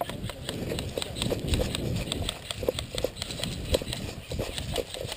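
Footsteps of a person running across grass, a quick uneven patter of footfalls with gear knocking along, over a low rumble of movement at the camera.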